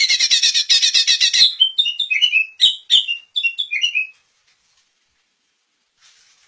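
Greater green leafbird (cucak ijo) singing: a rapid, high chattering run for about a second and a half, then a string of short whistled notes and phrases that stops about four seconds in.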